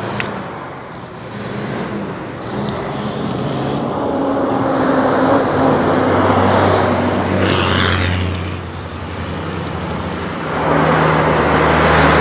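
Motor vehicles passing on a highway, engines humming and tyres hissing, swelling to one peak around the middle and another near the end.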